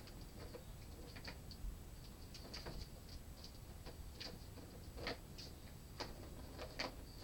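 Light, irregular clicks and ticks, about one or two a second, typical of kittens crunching dry kibble.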